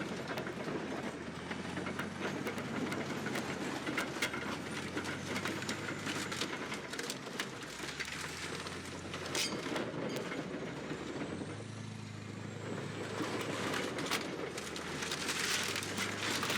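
Bulldozer's diesel engine running, its pitch shifting a couple of times, with repeated sharp metallic clanks and crunches as it crushes dirt bikes under its tracks.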